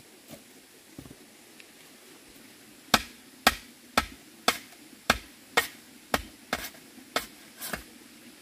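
Bamboo pole being struck hard: about ten sharp knocks, roughly two a second, starting about three seconds in, with two lighter knocks before them.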